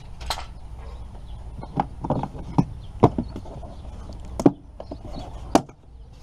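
Hard plastic engine-bay cover and its clips being handled and pulled loose: about seven sharp, irregular clicks and knocks over a steady low rumble.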